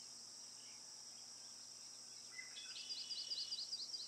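Faint nature-sounds background track: a steady high insect drone, with a bird singing a quick run of repeated chirps from about two and a half seconds in.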